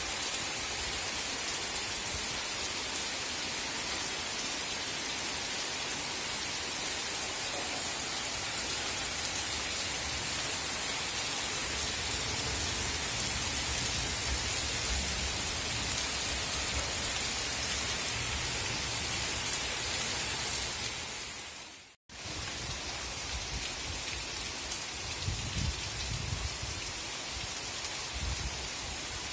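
Heavy monsoon rain falling steadily, a dense hiss of rain on roofs, ledges and leaves, with low rumbling swells in the second half. The sound cuts out for a moment about three-quarters of the way through, then the rain resumes.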